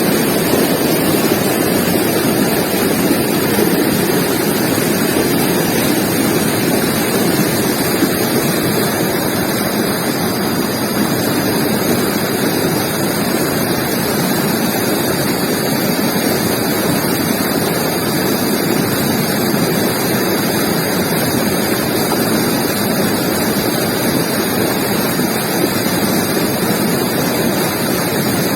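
River water flowing and rushing over rocks in a steady, unbroken stream.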